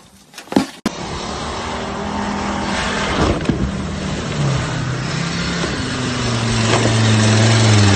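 A vehicle engine running with a steady hum that shifts in pitch a few times and grows louder toward the end, over a rushing noise, with a sharp knock about three seconds in.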